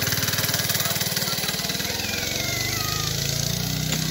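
Small 80cc go-kart engine running as the kart drives past close by. Its fast firing beat is clear for the first couple of seconds, then it blurs into a steadier, slightly quieter hum as the kart moves away.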